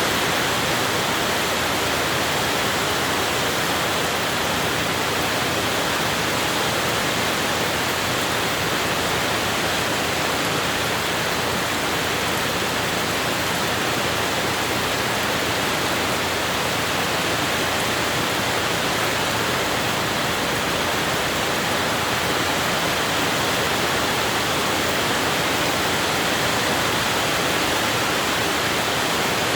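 Rain falling steadily, a loud even hiss with no let-up.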